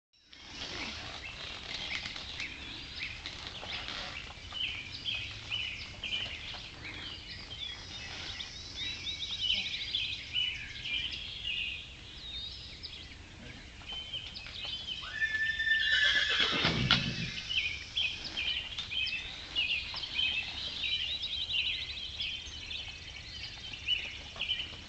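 A horse whinnies once, about fifteen seconds in: a long loud call that falls steadily in pitch. Busy high chirping goes on throughout.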